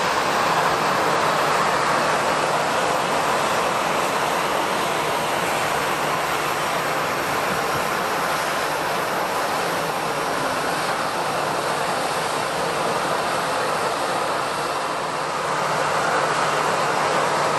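Jet airliner engines running, a steady rushing noise with a faint rising whine near the end.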